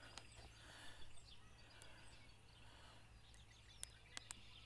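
Near silence: faint background noise with a few light, sharp clicks near the end.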